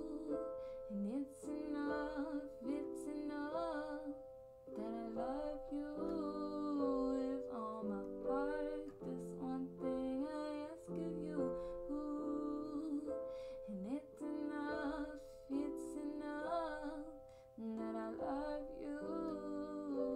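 Music: a song with a plucked guitar accompaniment under long-held notes and a wavering melody line.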